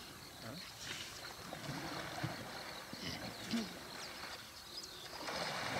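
African elephant bulls sloshing and splashing through a waterhole as they wade and push against each other, with irregular splashes throughout. A steadier rushing noise comes in near the end.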